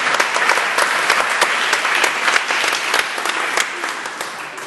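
Audience applauding, the clapping thinning and fading out near the end.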